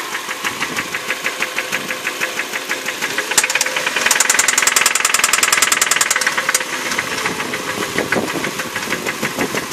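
2006 Hyundai Sonata engine running with a rapid, even clicking from the engine, a clicking that began after the engine ran low on oil. About four seconds in, the clicks grow louder and quicker for a couple of seconds, then settle back.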